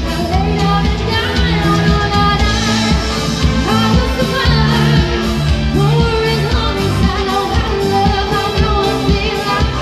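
Live music: a woman singing into a microphone over keyboard-led accompaniment with a steady beat.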